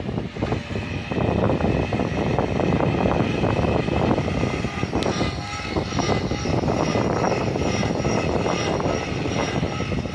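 Gaui X3 electric RC helicopter in flight: a steady high whine from its motor and rotors, over gusty wind buffeting the microphone.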